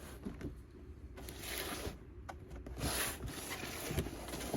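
Cardboard toy packaging being handled and opened: a few spells of scraping and rustling with small knocks between them.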